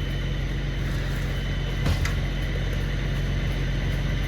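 Tow truck's engine running steadily, powering the winch that drags the dozer, with a single knock about two seconds in.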